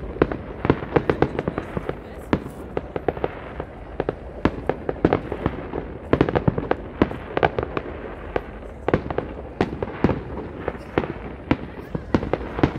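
Fireworks going off in a rapid, unbroken string of sharp bangs and crackles, several a second.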